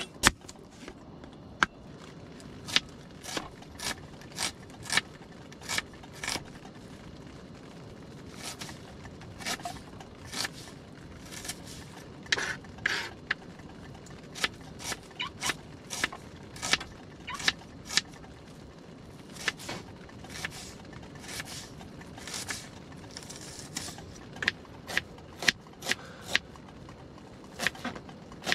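Chef's knife slicing small red onions on a plastic cutting board: irregular sharp taps of the blade hitting the board, about one to two a second, with a few short scrapes.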